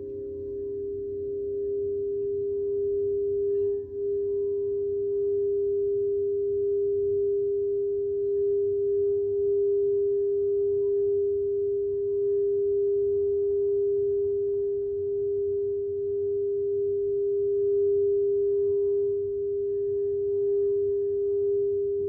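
Singing bowl sounded with a sustained rim tone, one steady pitch held throughout with faint higher overtones. A lower tone fades over the first few seconds, and the sound dips briefly about four seconds in before carrying on.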